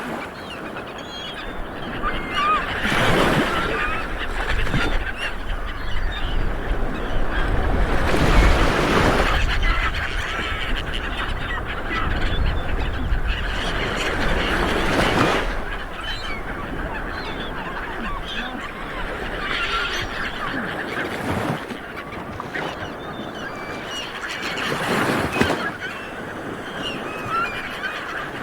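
Light waves breaking and washing up a beach, surging every several seconds, with birds calling over the surf in short honking cries.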